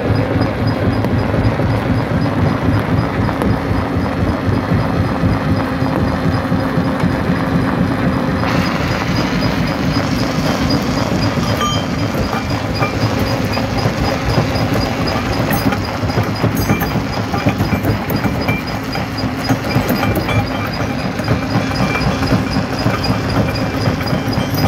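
Jaw crusher running and crushing rock: a loud, steady rumble with a dense clatter of stone. The clatter turns brighter and harsher about eight seconds in.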